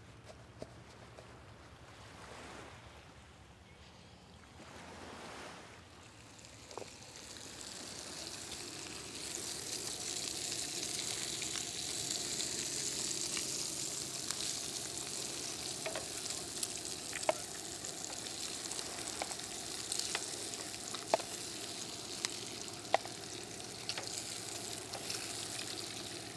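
Meat sizzling on a griddle over a two-burner camp stove. The sizzle builds up about eight seconds in, and sharp clicks of metal tongs against the griddle come now and then in the second half.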